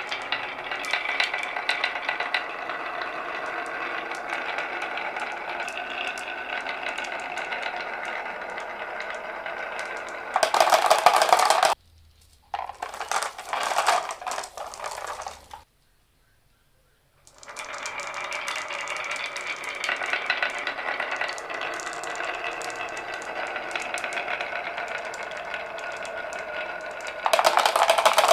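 Many marbles rolling and clattering down a wooden marble run, a steady rattle of small clicks. It turns into two louder bursts of clatter, one about ten seconds in and one at the end, with a brief silence in between.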